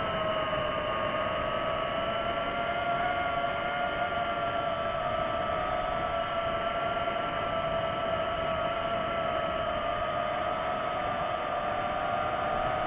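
DJI FPV drone's motors and propellers whining steadily over a rushing hiss, the pitch drifting only slightly as the throttle is held.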